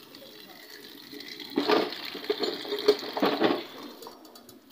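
Tap water running onto chopped red chilies in a plastic colander in the sink, with louder splashing twice about midway.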